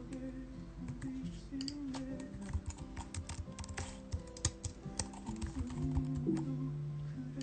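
A song plays softly, its melody in long held notes. Over it come quick light clicks and taps, thickest in the middle.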